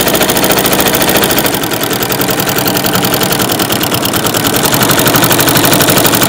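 Domestic sewing machine running at a fast, steady speed, quilting straight lines through cotton fabric layered over foam. The needle's strokes come as a rapid, even run of ticks.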